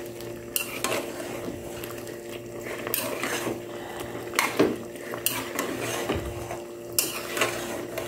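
A metal spoon scraping and knocking against a metal wok as chicken in sauce is stirred, in a handful of separate strokes. A steady low hum runs underneath.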